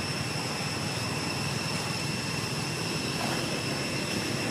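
Steady outdoor background noise: a constant low rumble with a continuous high-pitched whine held at an even pitch over it.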